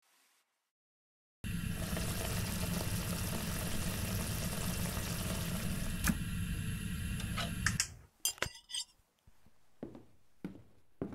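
Water running from a kitchen tap into a sink, switching on suddenly and shut off after about six seconds, followed by a few quick clinks of a plate and cutlery.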